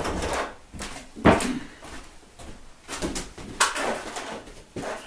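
Several knocks and clunks of trike parts and tools being handled during teardown, about five in all, the loudest at the start and about a second in.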